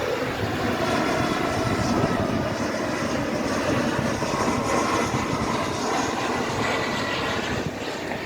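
Jet engines of an arriving American Eagle regional airliner: a steady rushing noise with a faint high whine, dropping off a little near the end.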